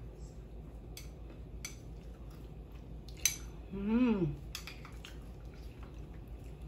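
Metal spoon clinking against a ceramic bowl in several sharp taps while eating fruit cocktail, the loudest a little past three seconds in. About four seconds in comes a short hummed voice sound of enjoyment that rises and then falls in pitch.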